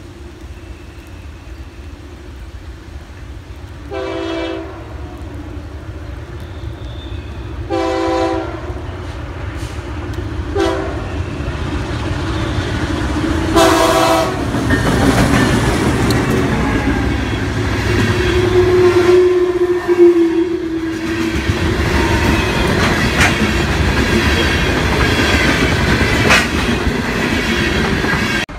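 Diesel freight train approaching and sounding its air horn in four blasts, the third one short, the pattern used at grade crossings. It then passes close by with a loud engine rumble and the clatter of wheels on the rails.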